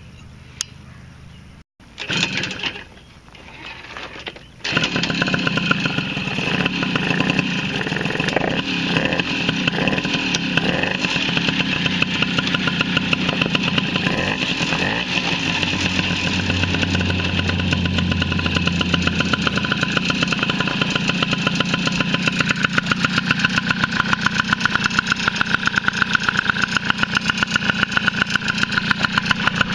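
Tomos A35 50cc two-stroke moped engine with a Tecno Bullet exhaust starting: a short burst about two seconds in, then it catches about five seconds in and runs steadily at idle with a rapid, even putter.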